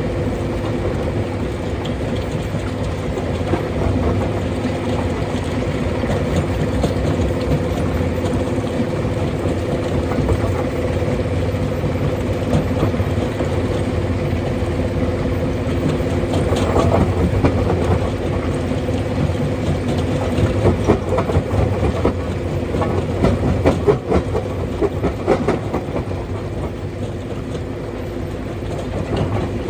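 Stone crusher running: a steady mechanical hum under dense, irregular clattering and knocking of rock, busier in the second half.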